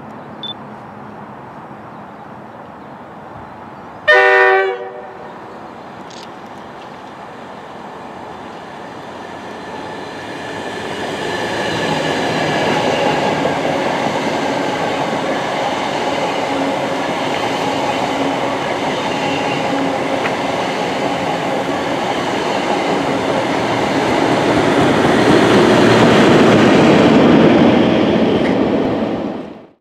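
A train horn gives one short blast about four seconds in. Then a loco-hauled passenger train of Mark 3 coaches approaches and runs past at speed, its rumble and rail clatter building and growing loudest near the end before cutting off suddenly.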